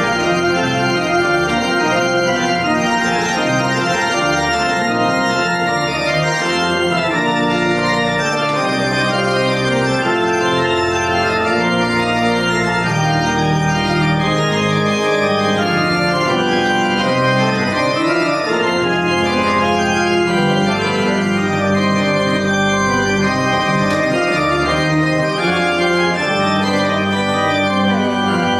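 Church organ playing a piece in held, sustained chords that change every second or two over a shifting bass line.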